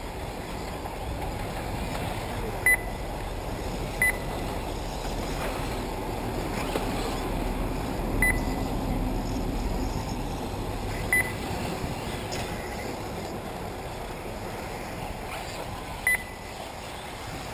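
Five short, high beeps at uneven intervals, typical of a lap-counting timing system registering RC cars as they cross the line. They sound over the steady running noise of 1/8-scale electric off-road buggies on the track.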